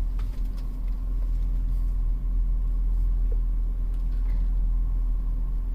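2007 BMW X3 3.0si's engine running with a steady low rumble.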